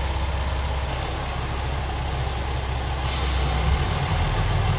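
Diesel engines of a 2000 series express railcar idling at a standstill with a steady low rumble; a hiss joins about three seconds in.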